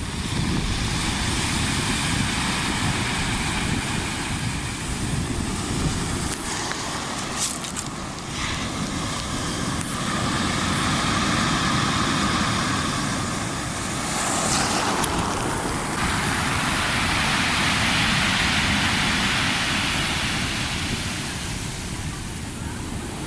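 Storm waves breaking and washing in, a rushing hiss that swells and ebbs, loudest for several seconds near the end. Under it runs a constant low rumble of wind buffeting the microphone.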